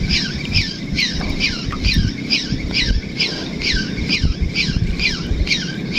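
Spinning fishing reel squeaking with each turn of the handle as line is wound in, about two short squeaks a second, each falling in pitch. The reel has become noisy, which the angler puts down to long, constant use.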